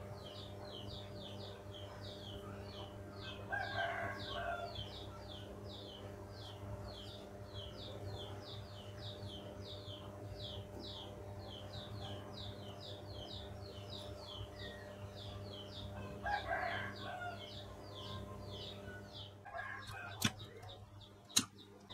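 A rooster crows twice, about 4 seconds in and about 17 seconds in, over a rapid high chirping about three times a second and a steady low hum. Near the end the chirping stops, and two sharp clicks come as plastic wire connectors on the circuit board are handled.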